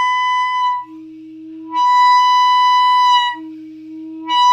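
Clarinet playing a high C-sharp, a bright held note, that twice sags slightly in pitch and collapses into a much quieter low tone, then sounds again. The note fails as the mouthpiece is drawn out of the mouth and comes back when it is pushed in: altissimo notes need more mouthpiece in the mouth to respond.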